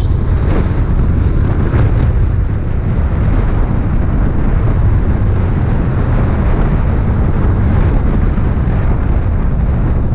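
Steady wind rush over the microphone while riding a Yamaha Aerox 155 scooter at road speed, with its single-cylinder 155 cc engine running underneath.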